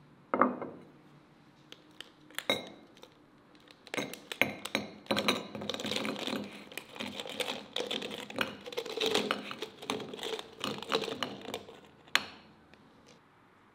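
A porcelain platter is set down on a wooden table with a sharp clack and a short ring. Sugar-coated jelly cubes are then tipped from a glass jar, tumbling and clattering onto the platter for several seconds, with the jar knocking against the dish. One last sharp knock comes near the end.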